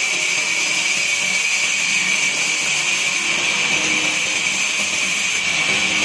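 Band saw running and cutting lengthwise through a wooden plank, a steady high-pitched whine over a rushing noise.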